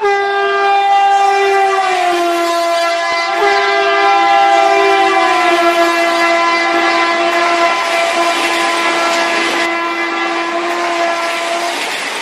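A train horn sounding one long, continuous blast of about twelve seconds, dipping slightly in pitch a couple of times.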